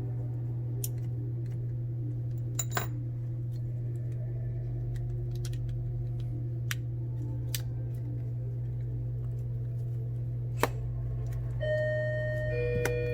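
Scattered light clicks and ticks of small tools and parts over a steady low hum. Near the end an electronic two-note door chime sounds, a higher ding then a lower dong, announcing someone entering the shop.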